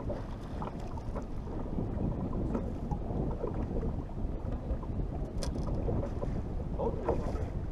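Steady wind buffeting the microphone over small waves lapping against a bass boat's hull, with a few faint knocks.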